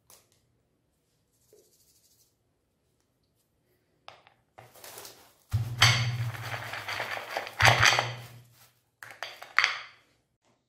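Hands arranging ice cream bars on a plate heaped with jelly beans: rustling and clinking handling noise that comes in several bursts from about four to ten seconds in, loudest in the middle.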